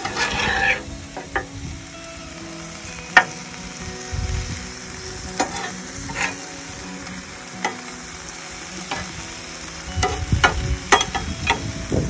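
Diced chicken frying on a Blackstone flat-top griddle, with a steady sizzle. Scattered sharp clicks and taps sound over it, coming thicker near the end.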